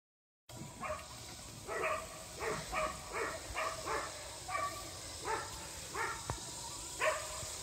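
A dog barking repeatedly, a dozen or so short barks at a fairly steady pace.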